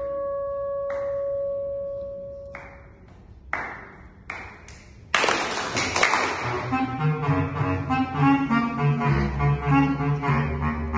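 Bass clarinet holding a long note, then a few short sharp attacks, then from about halfway through fast, leaping runs of low notes in a quick dance rhythm.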